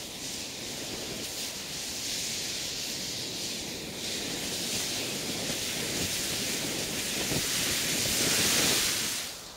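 Granulated-composition firework flare burning with a loud, steady hiss that rises a little toward the end and cuts off about nine seconds in.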